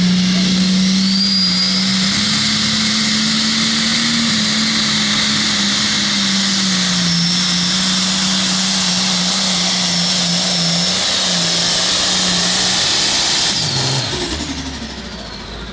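The turbocharged diesel engine of an International pulling tractor runs flat out, dragging the weight-transfer sled: a loud, steady high-rpm drone with a high whine over it. About fourteen seconds in the throttle comes off, and the engine and whine wind down, falling in pitch.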